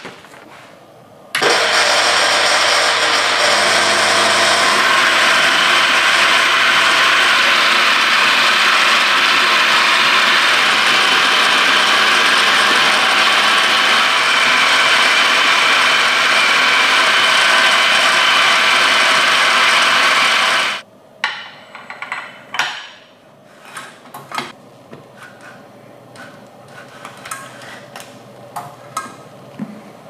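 Electric coffee grinder switched on about a second in, its motor running steadily as it grinds coffee beans for about twenty seconds, then cutting off suddenly. Light clicks and taps follow.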